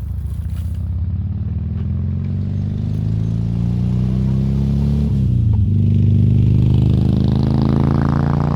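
Motorcycle engine accelerating hard, its pitch climbing, dropping at a gear change about five seconds in, then climbing and growing louder again.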